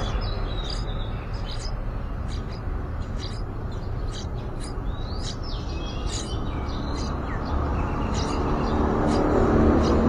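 Many short, high-pitched chirps from small songbirds, some sliding down in pitch, matching nestlings begging with gaping bills as a parent feeds them at the nest. Underneath is a low rumble that grows louder near the end.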